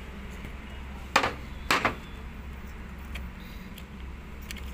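Two short scraping noises about half a second apart, the second a little longer, over a low steady hum.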